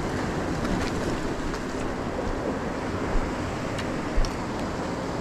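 Ocean surf washing over shore rocks, with wind on the microphone. Two short low thumps come about three and four seconds in.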